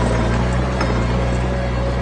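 Diesel engine of heavy earthmoving machinery, a dump truck or small bulldozer, running steadily with a deep, even hum.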